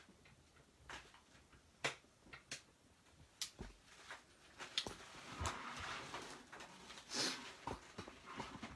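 Faint clicks and taps of watercolour painting tools being handled at a desk. From about five seconds in, a soft brushing, swishing noise builds and swells near the end.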